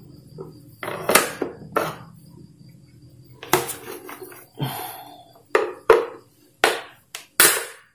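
A screwdriver clicking and knocking against the hard plastic base of a Philips blender while its back screws are undone, and the base is shifted about on a tile floor. Scattered sharp clacks, coming faster and louder in the second half.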